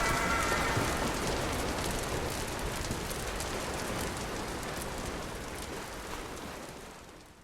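Wood fire crackling and popping in a fire pit, with a steady hiss under the crackles, fading out gradually to silence.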